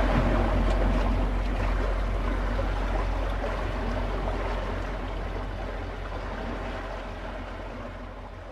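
Wind rumbling on the microphone with a steady rush of noise, fading out gradually.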